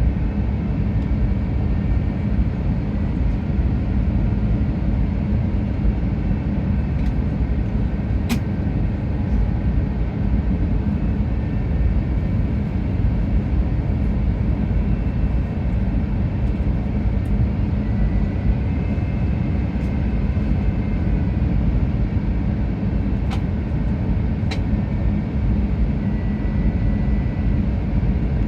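Steady, loud cabin rumble inside an Airbus A350, with faint thin whining tones above it and a few brief clicks.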